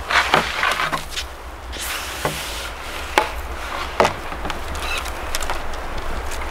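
Wooden skis being picked up and handled in snow: several sharp wooden knocks and clatters as the boards bump together, over rustling and crunching of snow.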